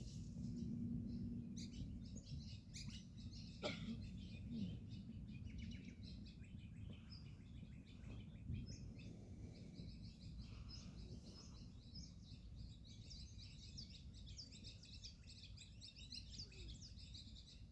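Australian magpies warbling and chirping, a continuous run of short, high notes over a faint low background rumble.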